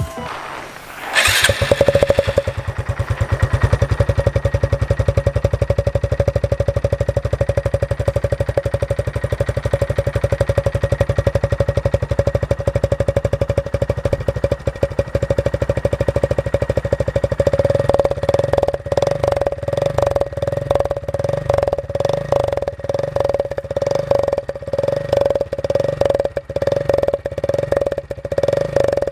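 Motorcycle engine starting about a second in and idling steadily. From a little past halfway it is revved in quick repeated throttle blips.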